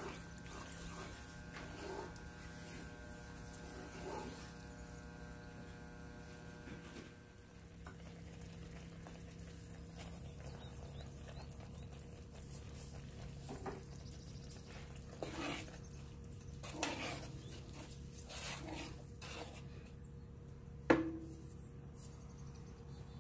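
Cooking sounds: scattered light clicks and knocks of a utensil against cookware over a steady low hum, with one sharp clink about 21 seconds in.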